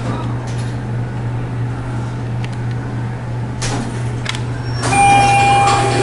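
Schindler hydraulic elevator car riding up with a steady low hum. Two light clunks come a little after halfway as it stops, then a single electronic arrival beep about a second long near the end as the doors begin to open.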